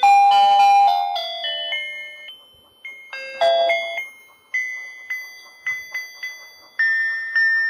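A simple electronic tune of short, chime-like single notes, each starting sharply and fading, with a brief lull about two and a half seconds in.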